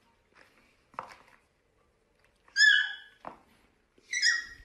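A small puppy giving two short, high-pitched yips about a second and a half apart, the second one dropping slightly in pitch. A couple of soft knocks come before each yip.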